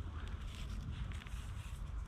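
Faint rustling and small scattered clicks, as of things being handled, over a steady low rumble.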